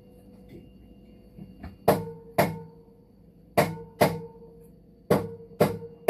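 A series of sharp strikes with short ringing, starting about two seconds in: three pairs about half a second apart, then settling into an even beat every half second.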